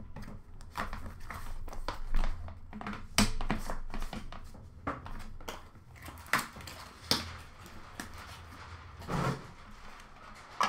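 Hands handling a cardboard box of hockey cards and clear plastic card cases. Irregular taps, clicks and light rustling as the box is handled and the cases are set down into a plastic bin.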